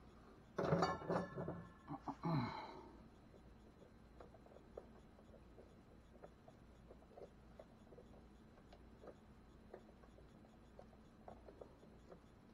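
Faint small clicks and ticks of hand pliers working wires inside a plastic electrical junction box. About a second in, a brief louder mumbled vocal sound from the worker, falling in pitch at its end.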